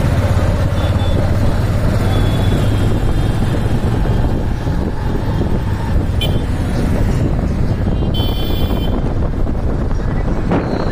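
Steady engine hum and road rumble from inside a moving vehicle in town traffic. A horn sounds briefly about eight seconds in.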